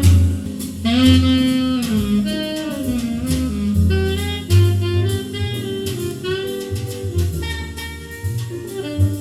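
Jazz music playing, with a melodic lead over a steady bass line and drums.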